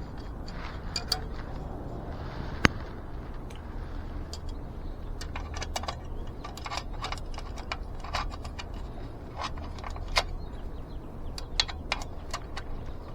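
Scattered metallic clinks and ticks from hand work on an e-bike wheel, metal parts and tools knocking together, with one sharper knock about two and a half seconds in.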